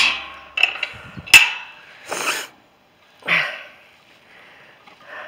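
A wooden field gate and its metal latch being handled as a walker passes through: sharp knocks and clanks at the start and again just over a second in, with the handheld camera jostled. Two short rushes of noise follow, a little over two and three seconds in.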